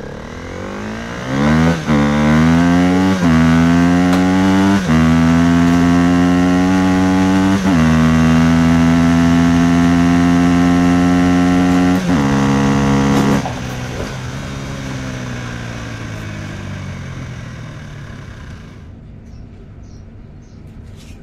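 A vehicle engine revving up through several gear changes, its pitch climbing and dropping back at each shift, then running at a steady speed and fading away.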